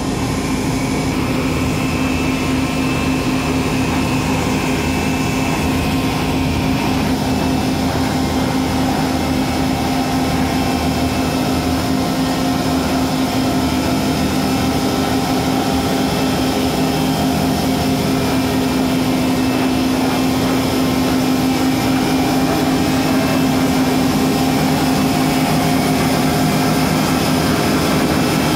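Rail grinding train working along the track: a loud, steady machine drone with a strong low hum, and a faint high whine in the first few seconds.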